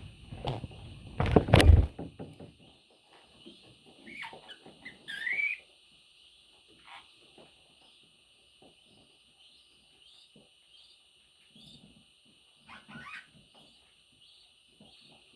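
Budgie chicks chirping softly and shuffling about the nest, with a loud rustling scuffle about a second in and a single rising chirp about five seconds in. Faint scratches and clicks follow.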